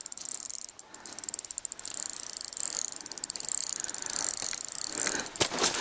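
Spinning reel's drag clicking rapidly in uneven surges as a large taimen strips braided line off it against the bent rod.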